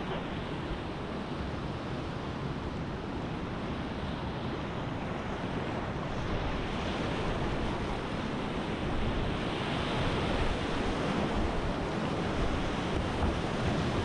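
Whitewater river rapids rushing steadily, with wind buffeting the microphone; the water grows gradually louder through the second half.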